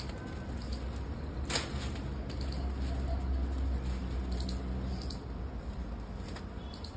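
Large paper kite being handled and set down, its thin paper crinkling, with one sharper crackle about a second and a half in, over a low steady rumble.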